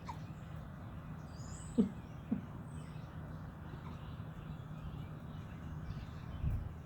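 A pet hiccupping: two short, sharp hiccups half a second apart about two seconds in, over a steady low hum, with a louder low thump near the end.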